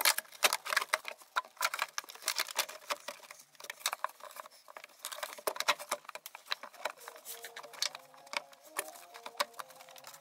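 Dense, irregular clicks, knocks and rattles as the heater blower housing is worked and pressed into its opening in the car's cowl.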